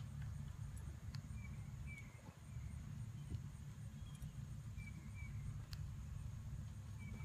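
Tennessee Walking Horse gaiting on soft arena sand under a rider, its hoofbeats faint under a steady low rumble. Short high chirps come every second or two.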